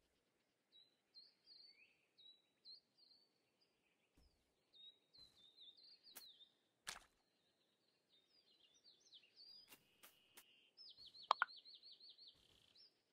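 A small bird chirping and singing faintly in short high notes and quick slurs, ending in a rapid trill of repeated notes. Several sharp clicks cut in around the middle and near the end, the loudest about eleven seconds in.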